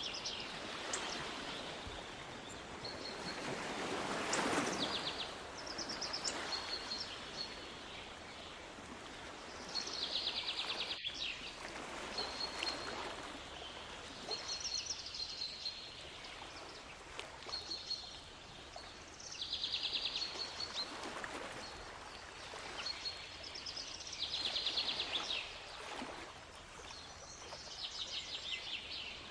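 Waves washing in, rising and falling every several seconds, with birds calling over them: repeated short high chirps and a few buzzy trills.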